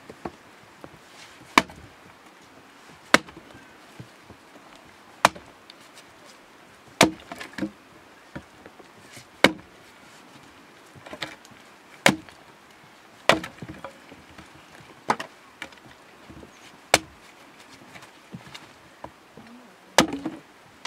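Hand axe chopping and splitting firewood: about a dozen sharp blows into the wood, every second or two, with the crack of pieces splitting off.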